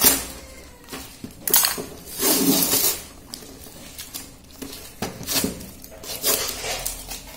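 Plastic security-seal packing tape being torn and peeled off a cardboard box, in several short noisy rips with the cardboard rustling; the longest rip comes about two seconds in.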